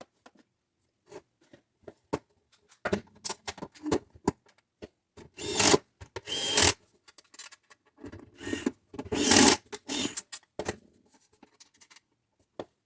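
Parts of a Breville espresso machine being handled and fitted back together by hand: irregular clicks, knocks and short scraping sounds, in two busier stretches with quiet gaps between.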